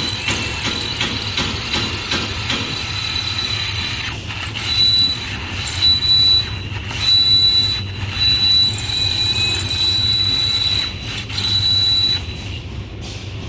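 A power drill running a stepped drill bit through a cast-iron brake rotor, with a steady high squeal from the bit cutting and the drill motor humming underneath. From about four seconds in, the squeal breaks off and comes back several times as the cut goes on.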